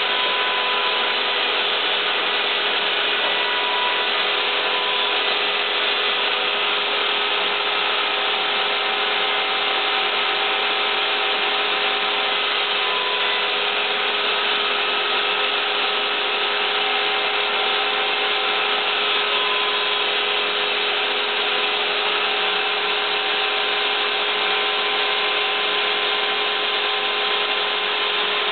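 Home-built CNC router running: a steady power-tool noise with a constant hum, while its Xylotex-driven stepper motors sing short steady tones that change pitch every second or two as the axes start, stop and change speed.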